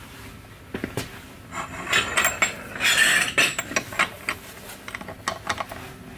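Metal clicks and clinks from a socket wrench on a front-wheel-drive car's 32 mm axle nut, in an irregular run that is densest about two to three and a half seconds in.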